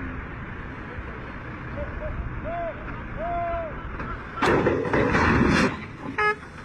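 Steady vehicle and road noise, with a few short pitched calls, then a sudden loud noisy burst lasting about a second, about four and a half seconds in.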